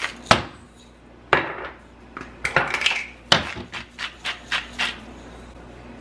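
Kitchenware knocking and clinking around a slow cooker as salt and pepper are added: several sharp knocks and clinks, with quieter clatter between.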